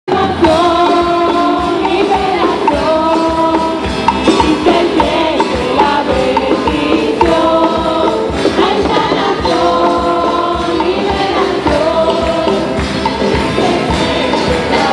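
A group singing a worship song together, with a tambourine and a steady beat underneath.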